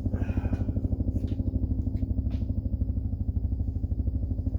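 A thrown pocket knife strikes and sticks in wood with one sharp hit at the very end. Underneath, a steady low, fast-pulsing engine-like drone runs throughout.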